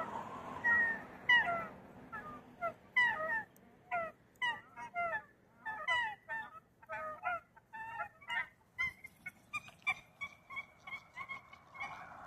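A small group of nēnē (Hawaiian geese) calling back and forth: a quick, overlapping run of short honks, many falling in pitch, several a second.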